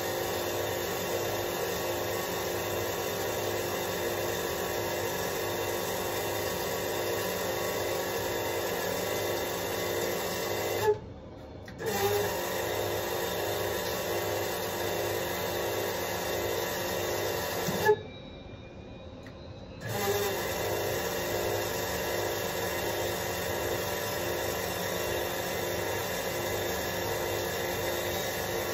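Electric oil replenishment pump of a Gulfstream G450 running with a steady hum while its button is held, pumping oil into the engine for a top-up. It stops twice, briefly and then for about two seconds, with a sharp click at each stop and restart, and cuts off at the end.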